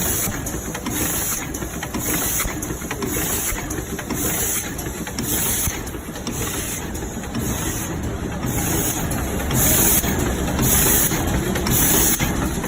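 Automatic double-layer paper lid forming machine running: a steady mechanical clatter with a regular hissing pulse repeating a little under a second apart as it cycles.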